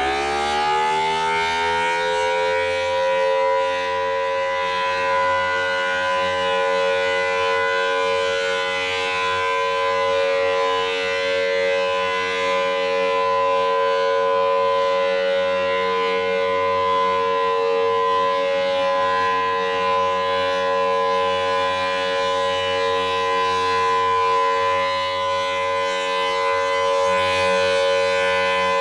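Federal Signal Thunderbolt 1000T civil defense siren sounding its steady Alert-mode tone. Its pitch finishes winding up in the first couple of seconds, then holds level as a loud, steady chord.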